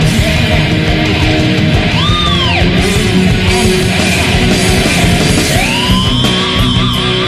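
Heavy metal music with distorted electric guitars. A high lead guitar note swoops up and falls back about two seconds in, and another rises near the end and is held with vibrato.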